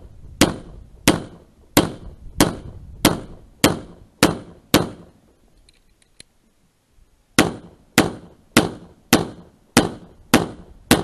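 Pistol shots in a steady string, about one every 0.6 s: eight shots, then a pause of about two seconds with a few faint clicks, then seven more shots.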